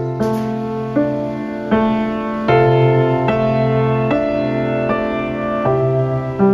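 Background music: a piano-like keyboard playing slow sustained chords, a new chord struck about every second.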